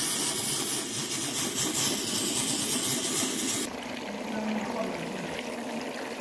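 Steam cleaner hissing loudly as its brush nozzle is worked over an air-conditioner evaporator coil, cutting off sharply about four seconds in. A quieter rush of running, dripping water follows as the cleaned blower wheel is rinsed.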